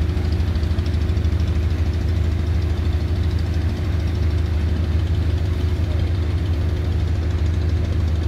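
Boat engines running steadily at low speed: a loud, deep, even rumble with a fast throb that does not change.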